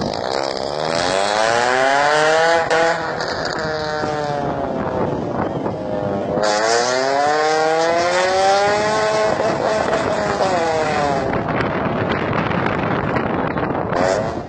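Car engine with headers and a straight-pipe exhaust, revved up twice. Each rev climbs in pitch for two to three seconds and then falls back, and the second one starts about six seconds in.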